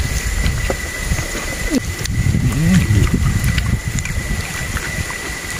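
River water rushing steadily with a low rumble, under a thin, steady high-pitched whine.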